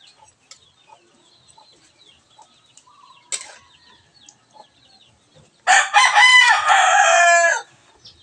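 A rooster crows once, a loud call of about two seconds starting near the end. Before it there is only the faint crackle of bananas frying in oil, with a short blip about three seconds in.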